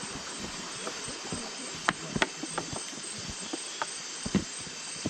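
Steady rainforest insect hiss, with scattered sharp clicks and knocks, the loudest two about two seconds in.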